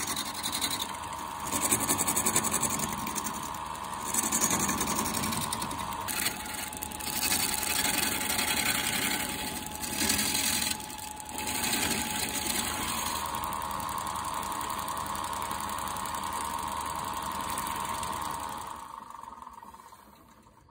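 Wood lathe running with a steady motor whine as a hand-held turning tool cuts into a spinning tree-stump vase blank, the scraping cutting noise swelling in several louder bursts. Near the end the lathe winds down and the sound fades out.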